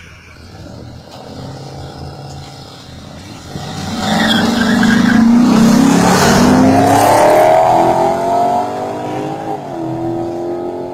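Two cars, a Jeep Grand Cherokee and a Ford Mustang, launching at full throttle in a quarter-mile drag race. The engines get much louder about four seconds in and climb steadily in pitch. Near the end the pitch drops briefly at a gear change, then climbs again as the cars pull away.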